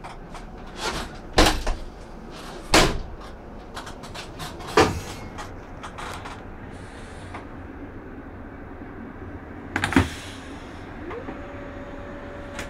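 Several sharp knocks and bangs of the bus's cab door and fittings being handled, spread over about ten seconds, inside the cab of a Van Hool ExquiCity bus. Near the end an electric whine rises in pitch and then holds steady.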